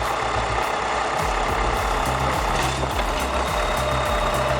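A bulldozer's diesel engine running, a steady dense machine noise, with background music with a steady beat underneath.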